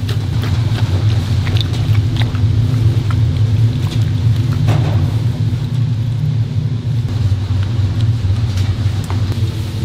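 Steady low machine rumble with occasional light clicks and scrapes of a silicone spatula stirring battered chicken in a stainless steel bowl.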